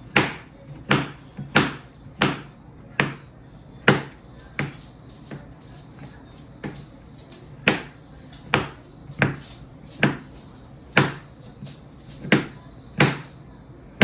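A knife chopping on a cutting board: a run of sharp, woody knocks, spaced unevenly at about one to two a second.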